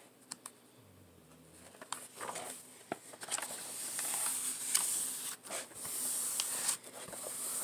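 Rustling and crinkling of a diamond painting canvas and its plastic cover film as it is handled and turned over, with a few sharp clicks. It starts about two seconds in.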